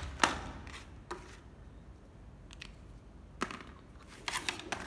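Hard plastic clicks and knocks of cordless drills being handled: a sharp click just after the start, a few scattered taps, and a quick run of clicks near the end. No drill motor runs.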